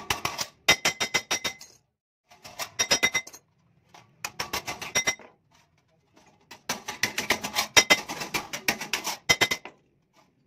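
Small hammer tapping rapidly on a steel clutch plate, several light blows a second with a metallic ring, in four bursts with short pauses between.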